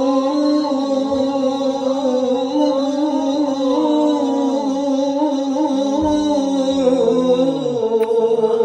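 A man singing a naat through a microphone and loudspeakers, holding long drawn-out notes whose pitch wavers and glides slowly.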